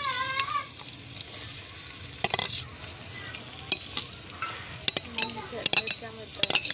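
Sliced onions and garlic sizzling in hot oil in an aluminium pot, a steady hiss broken by scattered clicks and scrapes as green chillies are tipped in from a steel bowl and a spoon stirs in the pot.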